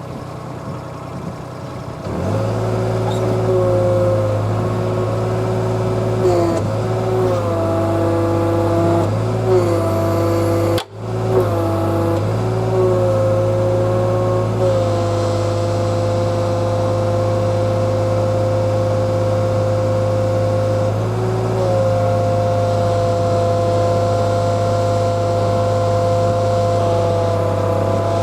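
Kobelco mini excavator's diesel engine running with a steady hydraulic whine; the sound jumps up about two seconds in, and the whine dips and shifts in pitch several times under changing load, with a brief cut-out near the middle.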